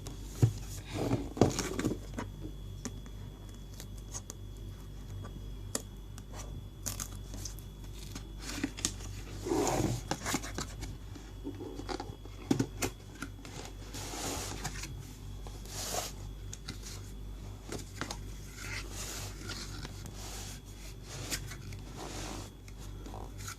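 Retail box of a Samsung Galaxy Tab A tablet being handled and opened: scattered scrapes, rubbing and sharp clicks as the packaging is cut or torn open and worked at.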